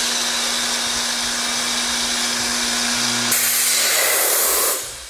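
Grass EcoPress P hinge boring machine running a boring cycle: the boring motor hums steadily under a loud rush of air and drilling noise as the head drives the bits down into the wooden workpiece. The sound shifts a little past three seconds and dies away near the end as the cycle finishes.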